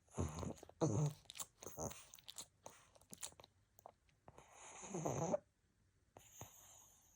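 Sleeping pug snorting twice, then a run of quick clicking and smacking mouth noises, then one longer snore about five seconds in.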